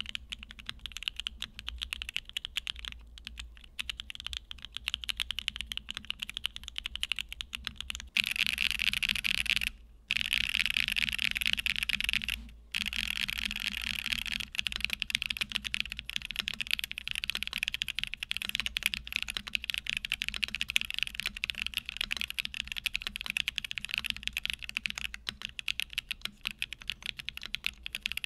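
Typing test on a Newone Twilight TKL gasket-mount mechanical keyboard with PBT keycaps: continuous key clacks. It starts on factory-lubed TTC Tiger switches in a PC plate. From about eight seconds in it switches to factory-lubed TTC Holy Panda switches in an aluminium plate, beginning with a stretch of very fast, dense typing.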